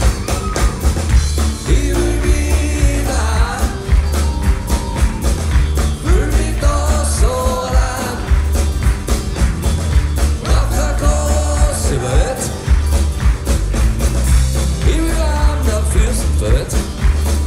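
Live band music: guitars and electric bass over a steady pulsing beat, with a melody line on top.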